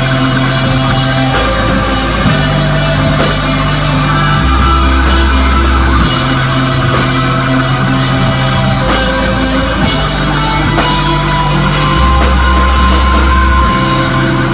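Rock band playing loud and live: drums with regular cymbal hits, guitars, and held bass notes that change every couple of seconds.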